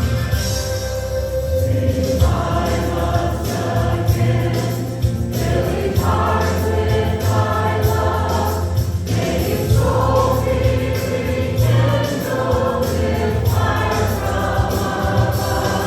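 Christian worship song: a group of voices singing in phrases of a few seconds over a band with a strong bass line.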